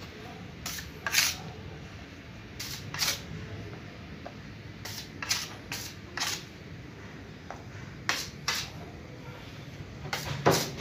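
Short scraping strokes of a drywall putty knife working joint compound over taped ceiling joints, mostly in quick pairs every couple of seconds.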